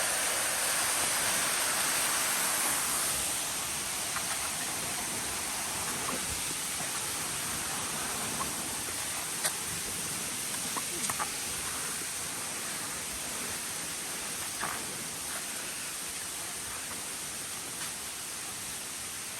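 Steady rush of water from a waterfall or river, slowly growing fainter, with a few faint clicks.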